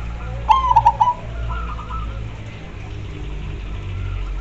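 Zebra dove (perkutut) cooing: about half a second in, a loud phrase of one rising note and then a quick staccato run of notes. A fainter, shorter phrase follows about a second later, and another loud phrase begins right at the end, over a steady low hum.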